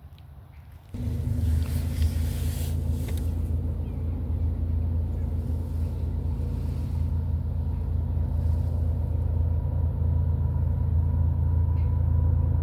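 Diesel locomotive engines of a CSX freight train rumbling steadily. The sound starts abruptly about a second in and grows slowly louder as the train approaches.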